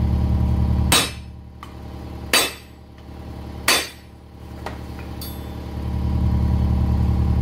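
Three sharp hammer blows on metal, about a second and a half apart, each ringing briefly, as an old wheel bearing is driven out of the ATV's hub. A steady low drone runs underneath.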